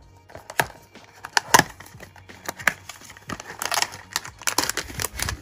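Small cardboard Pop Mart blind box being opened and handled by hand: irregular sharp clicks and taps of the card flaps, with a few short rustles in the second half as the contents slide out.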